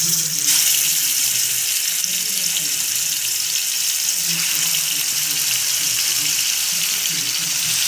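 Masala-coated fish steaks shallow-frying in hot oil on a flat pan, a loud, steady sizzle as they are laid in.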